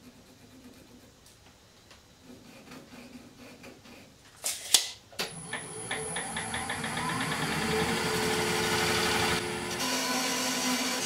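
Wood lathe switched on with sharp clicks about four and a half seconds in, spinning up with a quickening ticking and a rising hum that levels off. Near the end a parting tool begins cutting into the spinning oak blank with a steady scraping hiss.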